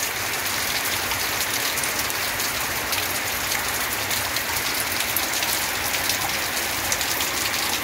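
Heavy rain falling steadily on clay-tiled roofs and a cobbled street: an even hiss made of countless close drop ticks.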